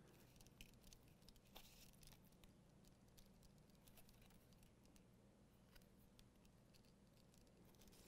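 Faint handling sounds of hand saddle-stitching veg-tanned leather: thread drawn through the stitch holes with light scratchy rustles and small clicks of the needles, busiest in the first couple of seconds and sparser after.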